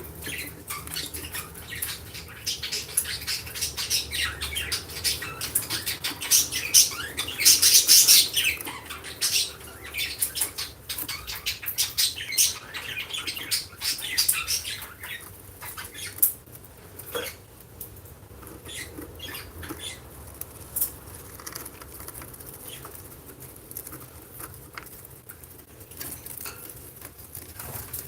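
Lovebirds chirping and chattering in quick, short high calls mixed with scratchy clicks and rustles, busiest during the first half and sparser later on.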